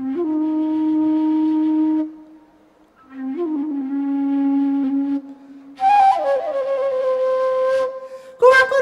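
Slow flute music from the film's score: three long held notes with short gaps between them, each starting with a scoop up in pitch, and the third sliding down. About eight and a half seconds in, a louder note begins over a run of sharp taps.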